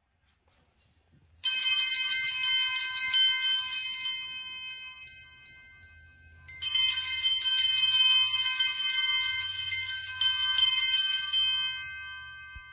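Altar bells shaken twice, about five seconds apart, each jangling ring fading away over several seconds: the Sanctus bells rung at the elevation during the consecration of the Mass.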